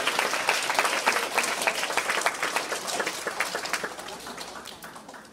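Audience of schoolchildren and adults applauding with dense clapping that thins out and fades away over the last second or two.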